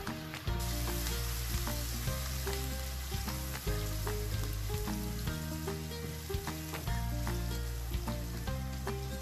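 Chopped onion, cumin seeds and curry leaves sizzling in hot oil in a nonstick pan, the onion freshly added. The sizzle grows louder about half a second in, with light clicks of a slotted spatula stirring against the pan, over soft background music.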